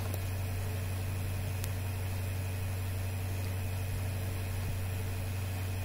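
Steady low electrical hum with a faint even hiss, unchanging throughout: background noise of the recording setup while nobody speaks.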